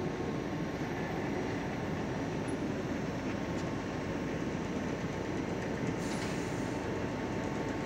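Carpet emboss printing machine running: a steady mechanical drone with a thin, constant whine through it as the fabric feeds over its rollers.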